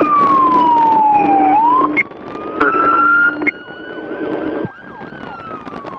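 Police siren wailing in a slow rise and fall: the pitch slides down, climbs for a few seconds, then falls again. It turns quieter about two seconds in, over a steady low hum that stops about three and a half seconds in.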